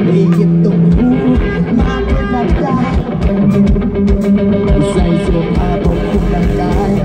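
Live rock band playing loudly over a PA: electric guitar with drums keeping a steady beat.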